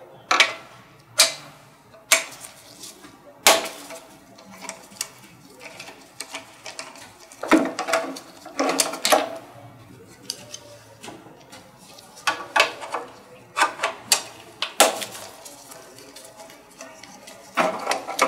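Repeated sharp metal clicks and knocks, irregularly spaced, of a 6 mm hex key being fitted and turned in the bolts that hold the front cowling of an Agilent IDP7 dry scroll vacuum pump.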